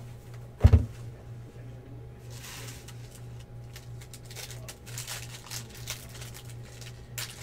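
A box of trading cards is set down on a table with a thump about a second in. Foil-wrapped card packs are then handled, giving a faint crinkling and many small clicks that grow busier in the second half. A steady low hum runs underneath.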